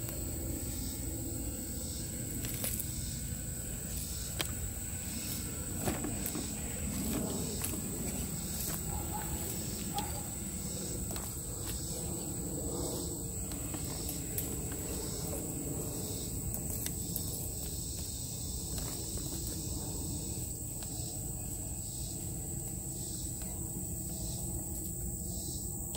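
Insects calling in a steady high drone with a regular pulsing above it, over scattered crackles and rustles of dry leaves and twigs as a scale RC crawler truck drives across the forest floor.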